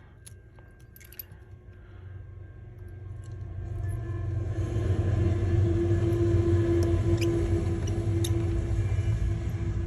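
A machine's steady hum, a low drone with a held tone above it, swelling over a few seconds and then holding. A few light clicks come just before it, at the start.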